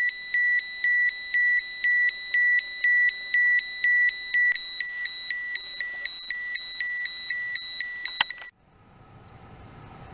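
Terra-P radiation dosimeter sounding its dose-rate alarm, a fast train of high-pitched beeps about two a second, because the radiation level it is reading is above its alarm threshold. The beeping stops abruptly about eight and a half seconds in, leaving a faint hum of a car's interior.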